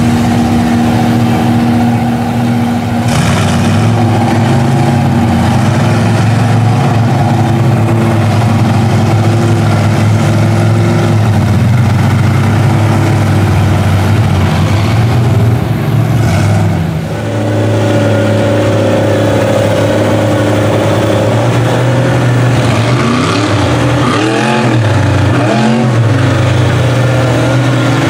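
Engines of lifted mud trucks on giant tires running steadily, with revving that rises and falls in pitch later on.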